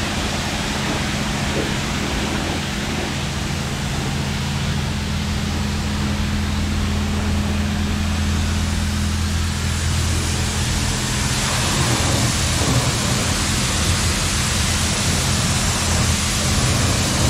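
Water spraying from a self-service car wash wand onto a car: a steady hiss with a low steady hum under it. The hiss brightens about ten seconds in.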